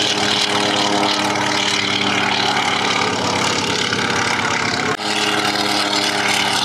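Antonov An-2 biplane's nine-cylinder radial piston engine and propeller running loud and steady on a low pass. The sound breaks off abruptly about five seconds in and picks up again with another An-2 passing the same way.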